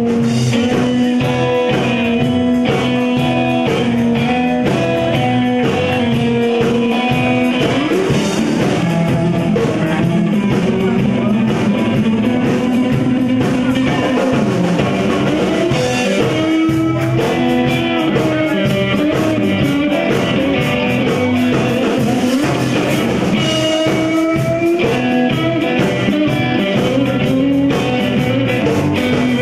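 Live rock-and-roll band playing an instrumental stretch. Electric guitar plays melodic lines with pitch bends over electric bass and drum kit.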